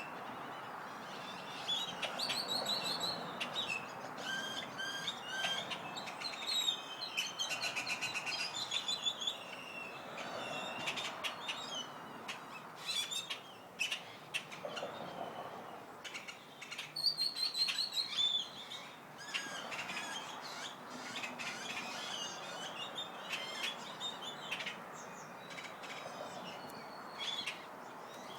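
Many small birds chirping and calling at once, with overlapping short high chirps and quick runs of repeated notes, over a steady background hiss.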